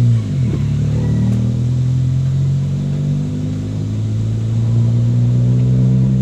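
Motor vehicle engine running steadily while driving along the road, heard from on board; its pitch falls right at the start, then holds and rises slightly near the end.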